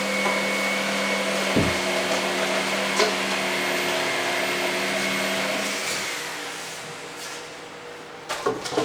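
An electric motor runs at a steady pitch, then is switched off about six seconds in and spins down. A few short knocks follow near the end.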